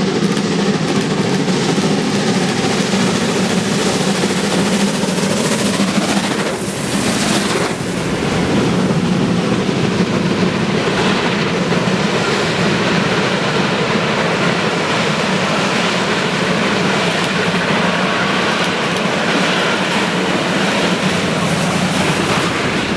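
German class 01 steam locomotives working hard as they pull a special passenger train away from a station, two at the head and a third pushing at the rear: steam exhaust and the rumble of the coaches rolling by. Loud and steady, with a brief dip about seven seconds in.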